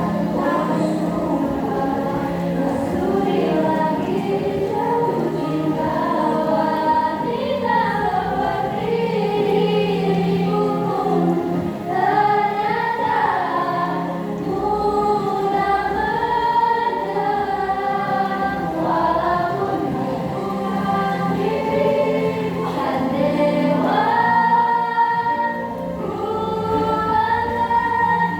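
Music with a choir of voices singing over a steady low sustained tone.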